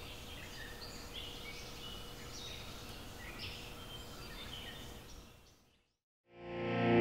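Outdoor ambience with birds chirping over a steady low rumble, fading out about five and a half seconds in. After a moment of silence, guitar music fades in near the end.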